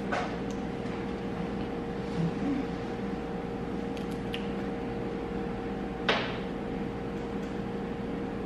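Steady hum, with a couple of short clicks, one just after the start and one about six seconds in, as a liquid highlighter's dropper bottle is unscrewed and handled.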